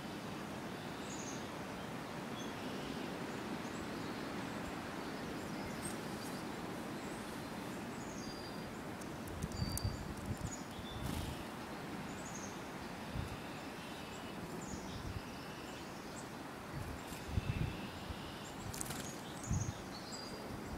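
Small songbirds giving scattered short, high chirps and call notes over steady outdoor background noise, with a few low thumps in the second half.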